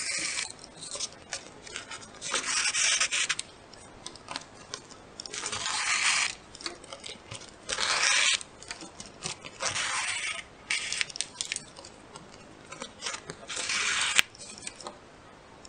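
A shoelace pulled through the punched holes of a paper lacing board, the sheet rustling as it is handled: about six brushing, scraping swishes, each up to a second long, with a sharp tick near the end.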